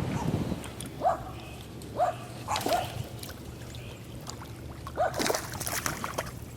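An animal's short whining yelps, some single and some in quick pairs, over a faint low hum and some splashing noise.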